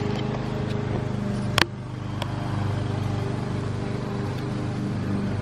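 A motor idling steadily, with a sharp click about a second and a half in.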